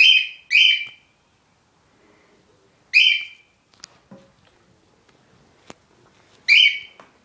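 A bird calling loudly, each call under half a second: two in quick succession at the start, another about three seconds in, and a fourth near the end.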